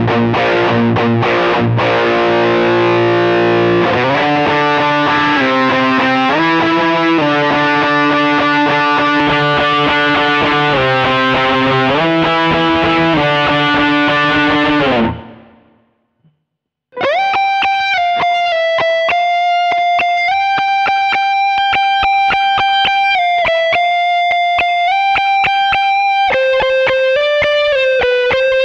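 Distorted electric guitar, a Fender American Standard Stratocaster played through a distortion effect and an amp-simulator pedal. First comes a chord riff on the bridge pickup, with the chord changing about once a second; it fades out about 15 seconds in. After a second of silence, a single-note lead line with long held notes follows on the neck pickup.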